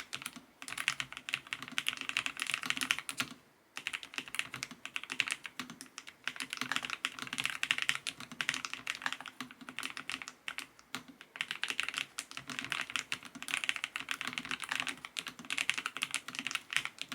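Fast typing on a Lofree Flow LITE low-profile mechanical keyboard, a dense run of key clicks with two short pauses.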